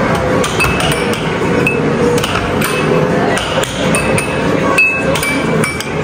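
Rapid light clinks and taps, several a second, some with short ringing tones, over a steady busy background.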